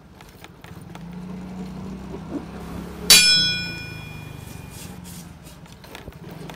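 A single metallic clang about three seconds in: something metal is struck once and rings on, its high tones dying away over about a second and a half.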